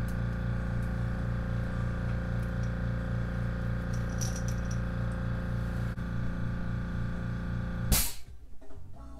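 Airbrush air compressor running with a steady, pulsing hum while no paint is being sprayed; about eight seconds in it stops abruptly with a short, loud burst.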